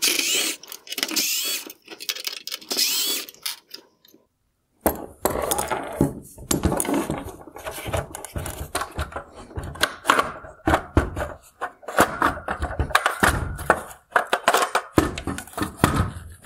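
A cordless screwdriver runs in several short bursts, about a second each, in the first few seconds, backing out the T20 Torx screws of a headlight's projector lens holder. It is followed by a long run of irregular clicks, knocks and clatter from the hard plastic headlight parts being handled and pulled apart.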